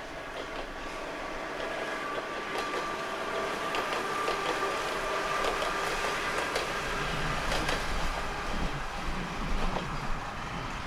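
Kominato Railway diesel train running past, with a steady whine and the clicks of wheels over the rails, growing a little louder over the first few seconds.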